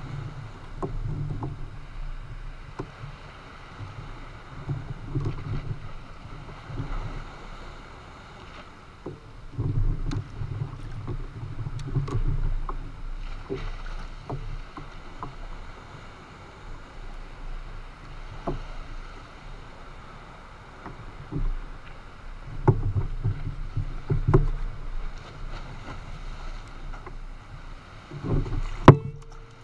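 Small waves lapping and slapping against a plastic fishing kayak's hull in uneven surges, with scattered light knocks and clicks and one sharp knock near the end.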